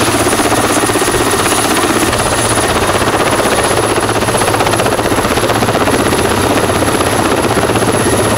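Mil Mi-8-family twin-turboshaft helicopter running on the ground with its main rotor turning: a fast, even rotor beat under a steady high turbine whine.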